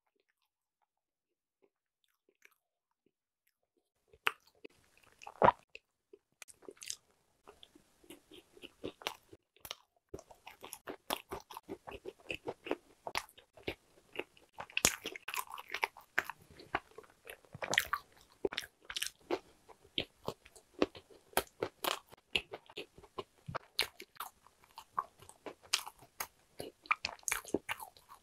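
Close-miked chewing of hodu-gwaja (Korean walnut cakes), crisp crunches coming several times a second as the walnut pieces inside are bitten and chewed. The chewing starts after about four seconds of near silence.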